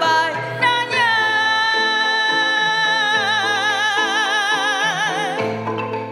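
Kolintang ensemble music: wooden mallet notes over a stepping bass line, with a long held melody note that swells into vibrato from about a second in and breaks off near five seconds.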